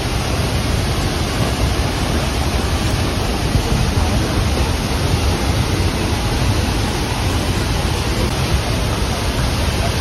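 Steady, loud rush of a monsoon-swollen waterfall and its windblown spray, with wind buffeting the microphone.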